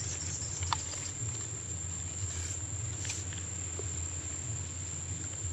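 Insects droning steadily at one high pitch over a low rumble, with a light click about three-quarters of a second in.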